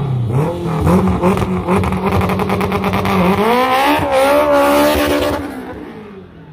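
Two K20-swapped Honda Civic EG hatchbacks held at steady high revs with a rapid stutter, then launching about three seconds in: the four-cylinder engine note climbs in pitch and fades away as they pull off down the road.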